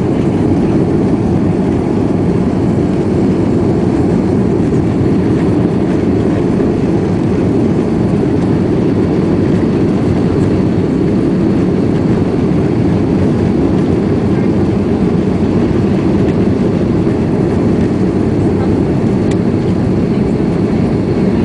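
Steady cabin noise of a twin-engine Airbus A330 in its climb after takeoff, heard from inside the cabin: the engines and the rush of air past the fuselage make an even, deep rumble that does not change.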